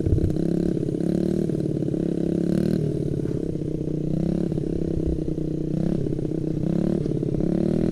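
Honda CRF50 mini dirt bike's small four-stroke single-cylinder engine running under a young rider's throttle. The pitch rises and falls again and again as the throttle is opened and eased off.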